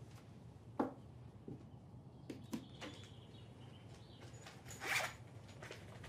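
A wooden dresser drawer pulled open with a light knock, soft rummaging through clothes, then about five seconds in a short zipper pull as a small black makeup pouch is unzipped.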